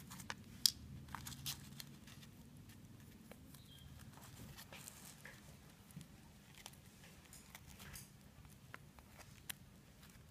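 Faint scattered clicks and rustles of fingers handling a small metal snap swivel on a fishing rig, the sharpest click about a second in, over a low steady hum.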